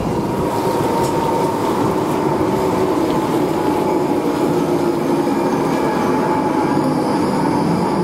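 Long low-floor articulated electric tram rolling slowly along the platform: steady running noise of the wheels on the rails with a steady whine over it, and a fainter higher whine joining near the end.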